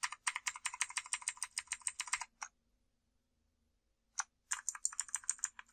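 Clicky blue-switch keys of a Rampage Orion KB-R90 mechanical keyboard pressed rapidly over and over, about ten clicks a second, to step the lighting-effect speed. The clicking stops for about two seconds midway, then there is a single press and another fast run.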